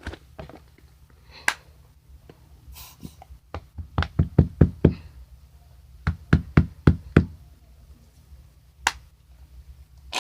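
Sharp knocks in two quick runs of about five or six, with a few single knocks before and after: a salt container being tapped to shake a little salt into a plastic cup of slime mix.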